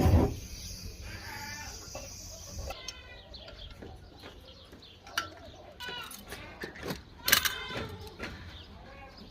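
Goats bleating several times, with one loud bleat near the end. A loud steady rushing noise cuts off just as it begins.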